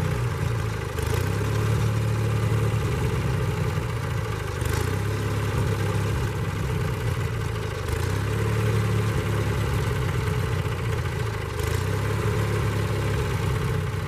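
The 18-horsepower engine of a Wood-Mizer LT30 portable sawmill running steadily without cutting, its hum swelling and easing slightly every few seconds.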